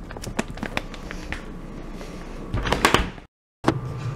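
Scattered knocks and clicks of household objects being handled, with a louder clatter about three seconds in. The sound then cuts out for a moment and comes back as a steady low hum.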